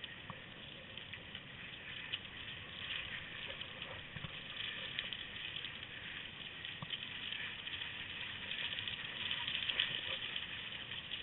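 Skis hissing steadily over snow as a team of three Samoyeds pulls them, with a quick patter of the dogs' booted paws on the snow.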